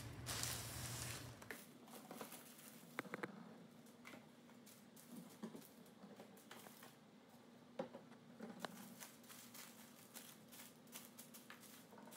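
Slime-making supplies being shuffled around on a table: a brief rustle, then scattered faint clicks and light knocks of bottles and containers being moved and set down.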